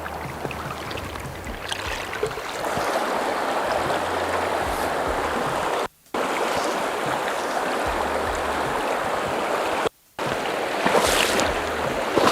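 Swollen, fast-flowing river rushing steadily, high and bloated with rainwater. The sound cuts out briefly twice, about six and ten seconds in.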